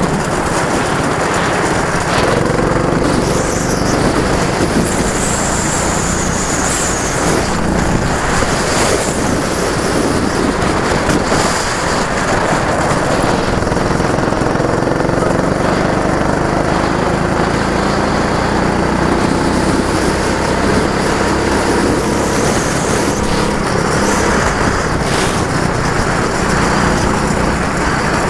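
Go-kart engine running hard with a steady rushing noise over it, its pitch rising and falling as the revs change.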